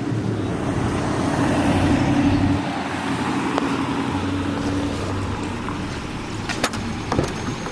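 A motor vehicle's engine running with a steady hum that swells over the first couple of seconds and then holds, with a few sharp clicks near the end.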